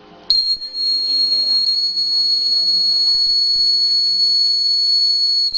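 Battery-powered buzzer of a homemade heat-triggered fire alarm sounding one loud, steady, high-pitched tone. It switches on about a third of a second in and cuts off suddenly near the end. Heat has brought the alarm's two contacts together and closed the circuit.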